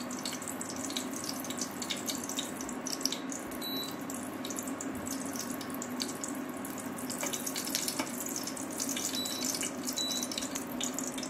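Hot ghee sizzling and crackling steadily in an enamel saucepan on an induction cooktop, with a steady low hum underneath.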